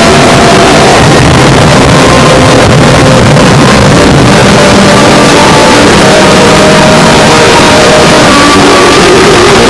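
Harsh noise music: a dense, unbroken wall of distorted noise at full loudness, with faint tones wavering and shifting in pitch underneath.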